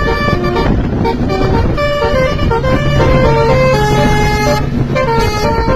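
Multi-tone 'telolet' basuri bus horn on a Po Haryanto bus, playing a fast melody of short notes that jump up and down several times a second, with one longer held note just past the middle.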